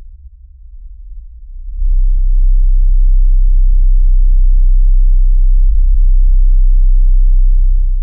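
A film soundtrack's low-frequency effects (LFE) channel played on its own, bass only. A quieter deep rumble swells about two seconds in to a loud, steady sub-bass drone, then starts to ease off near the end.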